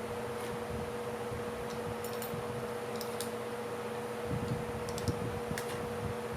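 Light clicks and taps of small metal carburetor parts and hand tools being handled, scattered irregularly over a steady background hum.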